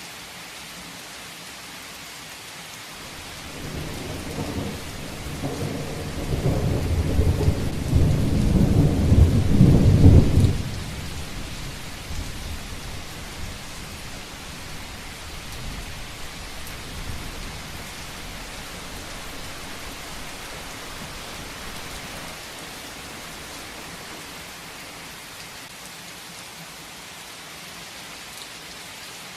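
Heavy rain falling steadily, with a long roll of thunder that builds from about three seconds in, is loudest for a few seconds in the middle, drops off suddenly and then rumbles away over the next ten seconds or so.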